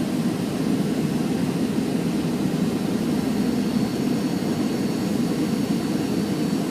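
Steady cabin noise inside a Boeing 737 on approach: an even rumble of jet engines and rushing air, with a faint high whine held over it.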